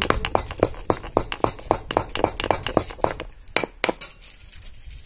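Stone pestle pounding whole spices (cumin, cinnamon) in a small stone mortar, sharp clinking strikes about four a second, then two louder knocks before it stops near the end. The spices are already ground to a fine powder.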